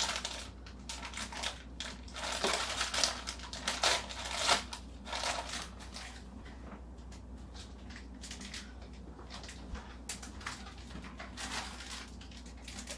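Plastic bag of shredded cheese crinkling as it is pulled open, in bursts over the first five seconds or so. It is followed by a quieter stretch with a few faint clicks and knocks.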